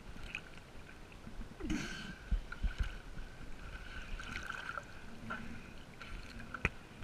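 Water sloshing and lapping around a camera held at the surface, with a few sharp splashes and knocks as a swimmer in a wetsuit climbs out onto a floating pontoon.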